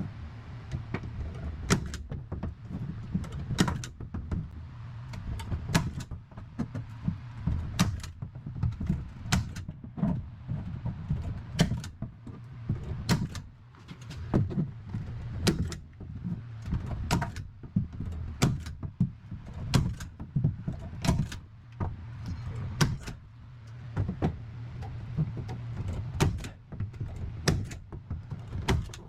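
Irregular knocks and clunks, one or two a second, from hands-on building work inside a bus, over a steady low hum.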